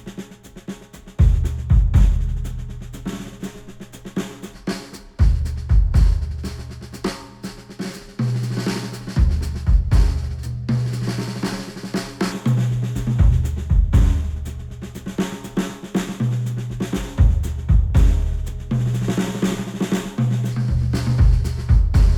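Drum-led music with kick, snare and a stepping bass line, played back through headphones and picked up by microphones at the ear cups. The beat comes in about a second in after a quieter opening.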